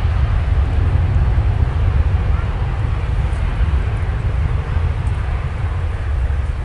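Jet airliner's engines at takeoff power across the airfield: a steady, loud rushing roar with a heavy low rumble underneath.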